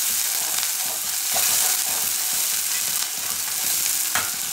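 Chopped onions sizzling in hot oil in a metal kadhai, stirred with a slotted metal spatula that knocks against the pan a couple of times.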